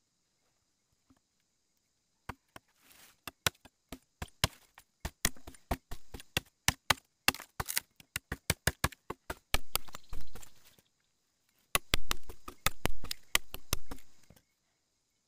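Machete chopping and shaving a green bamboo tube in rapid strikes, several a second, with a short pause about two-thirds of the way through.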